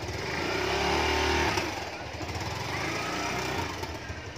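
Small motorcycle engine running, revved up about a second in and then easing off as the bike moves away.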